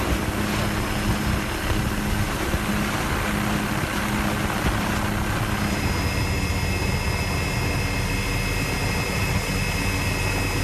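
Steady engine drone of an aircraft heard from on board, with a constant low hum and a thin high whine; the mix of tones shifts about six seconds in.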